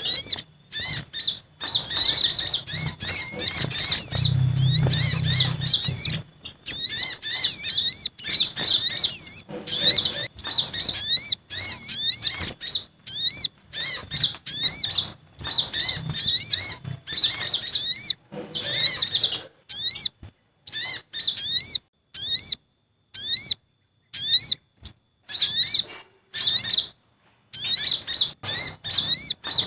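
Lure recording of sunbirds calling in agitation, the sogon (sogok ontong) mixed with the konin (kolibri ninja): rapid, high, sharp chirps in bursts of a second or two, separated by short pauses.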